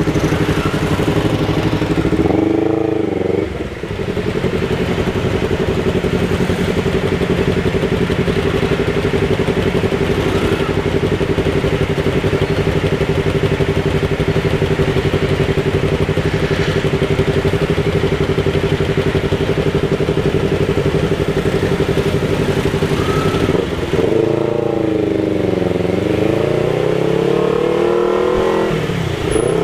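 Yamaha MT-03 motorcycle engine running through a Jeskap aftermarket exhaust with the dB killer removed, held at a steady note for most of the time. About three seconds in the pitch drops briefly as the throttle eases, and near the end the note falls and then climbs again as the bike slows and accelerates.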